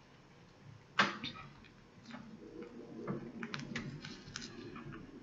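Handling noise from hand-sewing hair onto a wig on a mannequin head: one sharp click about a second in, then a soft rustle with a run of light ticks.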